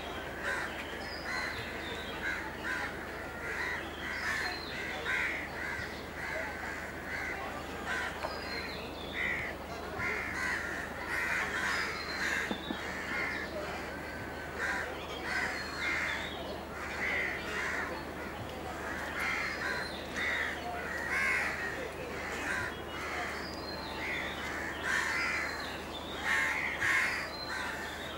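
Birds calling over and over in short calls, one after another and sometimes overlapping, over a low steady hum.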